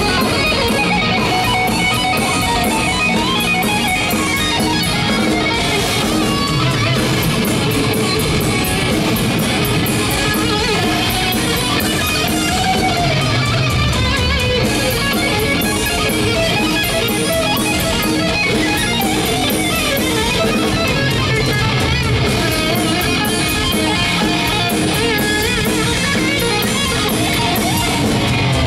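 Live death metal band playing at full volume: heavily distorted electric guitars through Marshall amp stacks over bass and drums, continuous.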